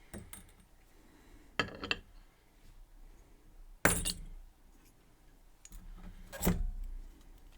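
Small metal lock parts and tools clicking and clinking while a Mul-T-Lock Garrison lock is taken apart: three sharp clicks, the loudest about halfway through.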